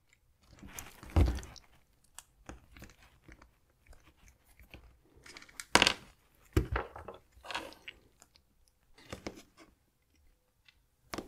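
Precision screwdriver bit clicking and scraping against the small screws on a plastic smartwatch bezel, in irregular short strokes, the loudest about six seconds in.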